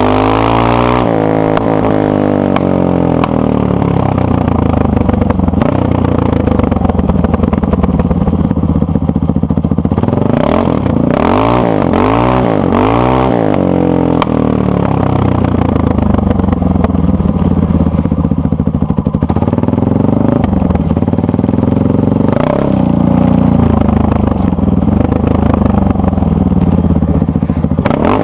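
Honda XR650R single-cylinder four-stroke engine on its stock exhaust, idling. The revs fall back from a blip at the start, then there is a quick run of three or four throttle blips in the middle and a short blip later on.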